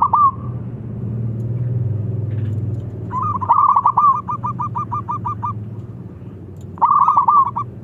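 Zebra dove (perkutut) calling: a short burst of cooing notes at the start, a quick run of about a dozen notes a few seconds in, and another short burst near the end. A steady low hum sits underneath.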